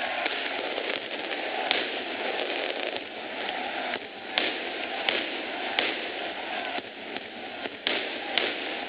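Firecrackers going off over the steady din of a football crowd: about six sharp bangs, most of them in the second half.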